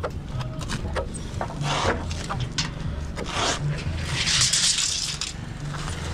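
Rubbing and scraping from hands and a tape measure on wood framing, with scattered light clicks and a louder hissing scrape about four seconds in, over a low steady hum.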